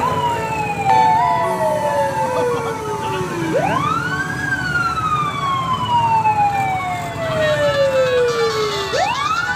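Ambulance siren wailing in slow cycles. Each cycle rises quickly to a high pitch, then falls slowly over about four seconds. It sweeps up twice, near the middle and again at the end.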